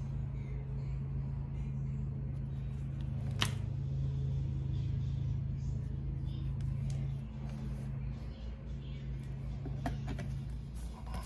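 A steady low hum runs throughout, dipping briefly about seven seconds in. Over it, seasoning shakers are handled, with a sharp click about three and a half seconds in and a few more clicks near the end.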